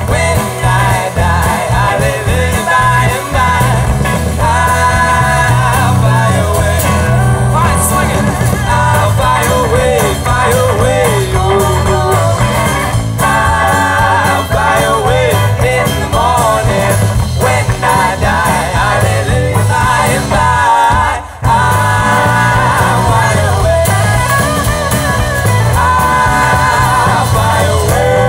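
Live band playing an instrumental passage of a folk-rock song: drum kit, bass and guitars under a wavering lead melody line. The music drops out briefly about three-quarters of the way through, then comes straight back in.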